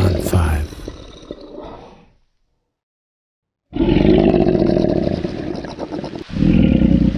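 Lion roaring: a deep roar that trails off over the first two seconds, then after a second and a half of silence the same roar starts again, breaking off and restarting near the end.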